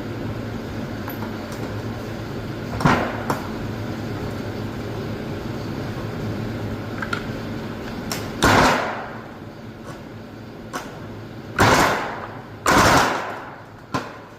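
Steel differential parts being handled and set down on a workbench, giving a few loud metallic clanks that ring briefly: a pair about three seconds in, then three louder ones in the second half.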